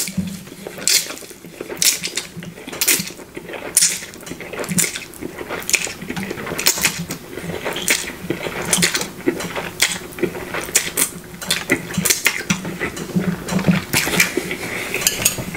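Close-miked eating sounds: spicy noodles being slurped and chewed, with wet mouth smacks and clicks coming irregularly, one or two a second.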